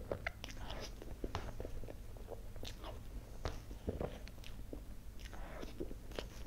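Close-miked eating of soft cream sponge cake with mango pieces: chewing and mouth sounds with many short clicks, taken in spoonful by spoonful.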